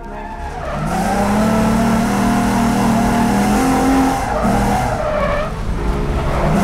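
A car's tires squealing over its running engine, a long wavering screech that builds up about a second in and eases near the end.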